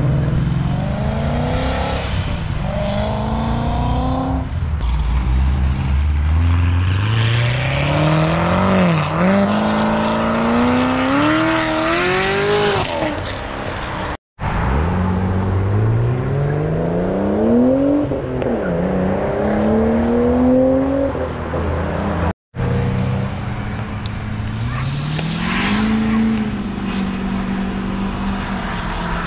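Cars accelerating hard along the road one after another, each engine revving up with its pitch climbing and dropping back at every gear change.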